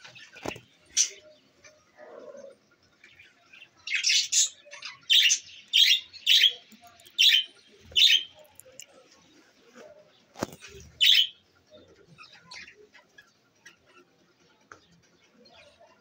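A flock of budgerigars chirping and chattering, with a run of about eight loud calls in quick succession in the middle and another loud call a little later. Two low thumps, one near the start and one about two-thirds of the way through.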